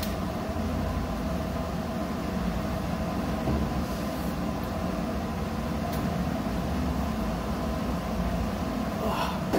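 Steady drone of running machinery, a constant low rumble with a faint steady hum over it and no change in speed.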